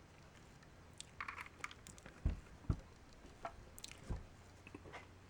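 Faint handling noise of alligator test clips being clipped onto a decade resistance box's terminals: scattered small clicks and scrapes with three dull thumps.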